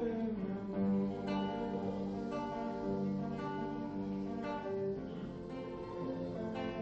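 Acoustic guitar playing, with notes plucked and strummed about once a second and left to ring.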